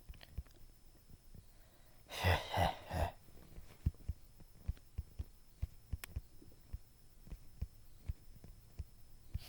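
Faint soft clicks at an irregular pace, with a man's brief three-beat vocal sound, like a short laugh, about two seconds in.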